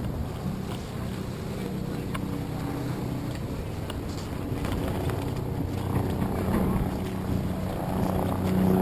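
A motor's low, steady hum over wind noise on the microphone, the hum growing louder near the end.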